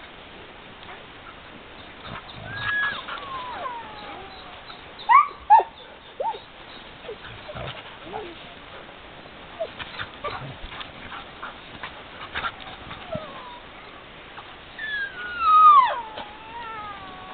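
Husky sled dogs vocalizing in play. A falling whine comes a couple of seconds in, then two short sharp yips about five seconds in. Near the end comes a long, wavering, falling howl-like call, the loudest sound.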